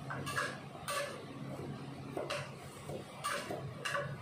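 A spatula stirring and scraping curry in a wok on the stove: about five short scrapes against the pan, irregularly spaced.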